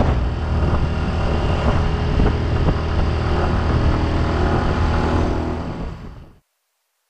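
Motorbike engine running with wind rushing over the microphone while riding, fading out about six seconds in.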